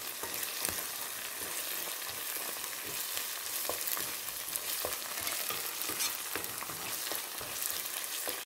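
Chopped onion and tomato frying in oil in a nonstick frying pan, a steady sizzle, while a wooden spatula stirs and scrapes through them with scattered light clicks against the pan.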